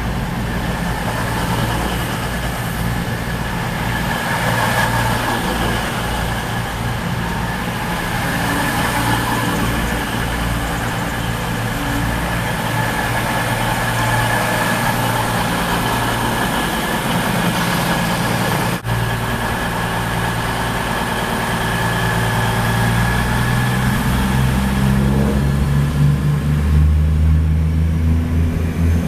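Underfloor diesel engines of two coupled Class 221 Super Voyager diesel-electric trains running at the platform, a steady engine hum. Near the end the engine note climbs and grows louder as the train powers away.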